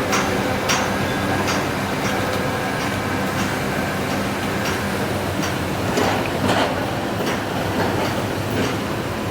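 Sany SR150C hydraulic rotary drilling rig running steadily while drilling a bored-pile hole, with a few sharp knocks scattered through the steady engine drone.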